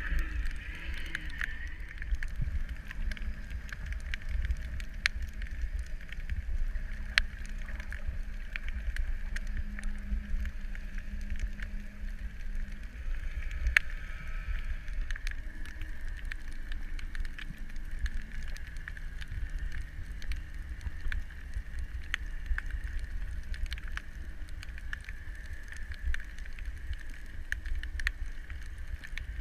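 Underwater ambience picked up through a camera housing: a steady low rumble and hiss, a faint hum like a distant boat engine, and scattered sharp clicks.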